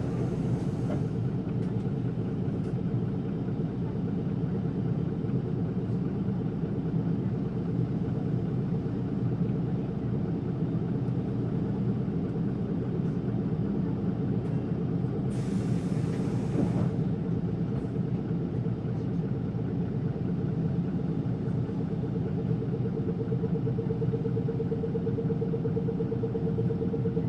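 Isuzu Erga city bus heard from inside the passenger cabin: diesel engine and road noise running steadily as the bus drives. There is a short hiss about halfway through, and a steady whine grows louder near the end.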